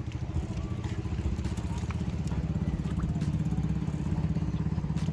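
A small engine running steadily with a fast pulsing drone that grows a little louder.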